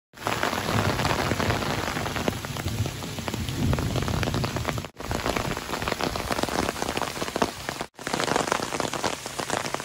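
Steady rain pattering on wet stone paving, a dense hiss of many small drop ticks, with a low rumble underneath in the first half. The sound drops out briefly twice, about five and eight seconds in.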